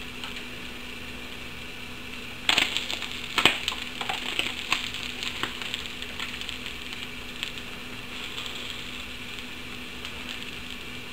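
Tilapia sizzling on a George Foreman contact grill: sharp clicks and crackling start suddenly about two and a half seconds in and die away over the next few seconds, over a steady low hiss.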